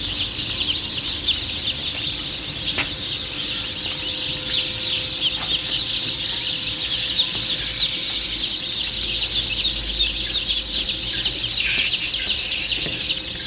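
A brood of baby chicks peeping continuously, many short high chirps overlapping.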